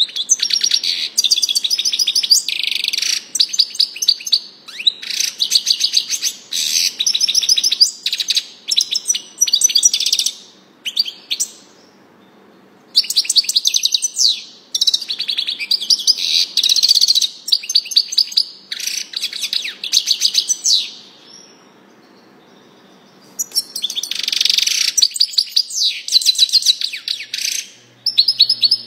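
European goldfinch singing: long runs of rapid, tinkling twitters, broken twice by pauses of a couple of seconds.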